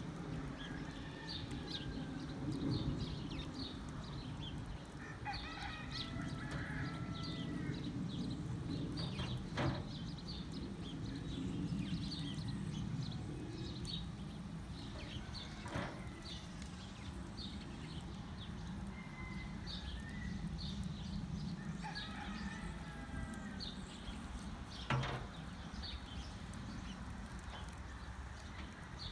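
A rooster crowing twice, about six seconds in and again about twenty-two seconds in, over a steady low rush. Small high ticks run throughout, and there are a few sharp knocks.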